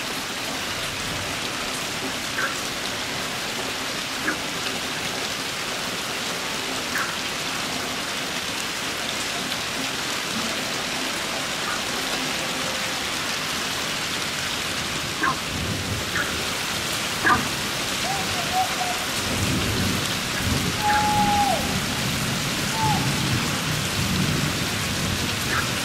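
Heavy rain falling steadily on the ground and surfaces, a constant hiss with scattered sharper drop taps. In the last several seconds a low rumble rises under the rain.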